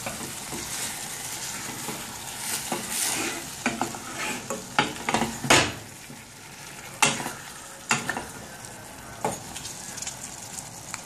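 A spoon stirring chicken, chickpeas and vegetables that are frying in oil in a pot, with sizzling; the scraping is busiest in the first half, then gives way to a quieter sizzle and several sharp knocks about a second apart.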